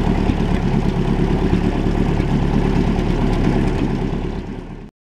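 Boat engine running steadily with a deep, even drone; it fades out near the end and then cuts off.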